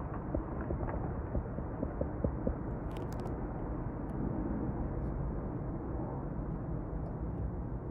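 Steady low rumble of an explosive-triggered powder avalanche pouring down a mountainside, with a few faint ticks in the first couple of seconds and a brief crackle about three seconds in.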